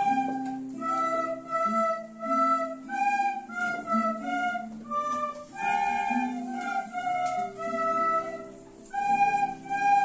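A group of children playing a slow tune together on recorders, each note held for about half a second to a second, with lower accompanying notes sounding underneath.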